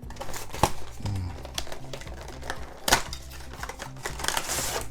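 Cardboard box and packaging being handled and opened, with scattered sharp clicks and taps and a brief rustle near the end, over soft background music.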